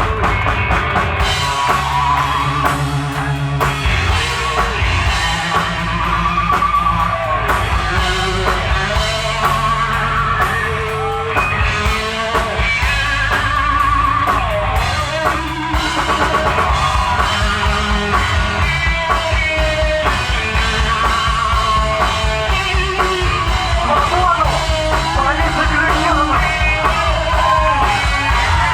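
A rock band playing live: guitars and a drum kit keeping a steady beat, with sung vocals over them.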